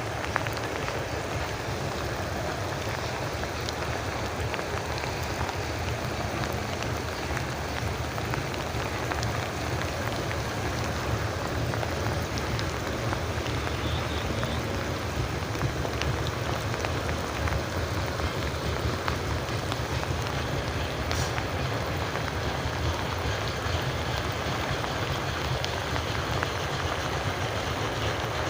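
Steady rain falling, an even hiss with a low rumble underneath that does not let up.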